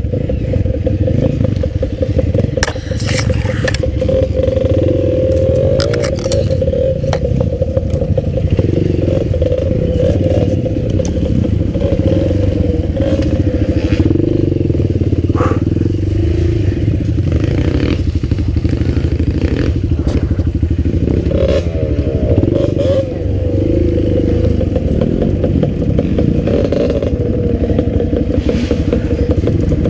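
Enduro dirt bike engine running, its pitch rising and falling with the throttle, with scattered knocks and clatter.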